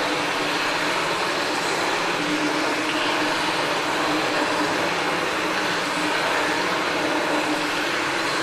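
Cave ambience sound effect: a steady, airy rushing hiss with a low hum beneath, unchanging throughout.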